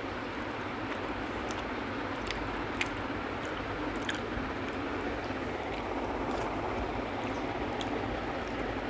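Eating by hand close to a lapel microphone: soft chewing and the squish of fingers working rice and chutney on a banana leaf, with small scattered clicks. Under it runs a steady background noise.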